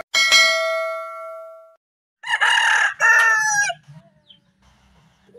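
A subscribe-button bell chime sound effect rings once and fades out over about a second and a half. About two seconds in, a rooster crows loudly for about a second and a half.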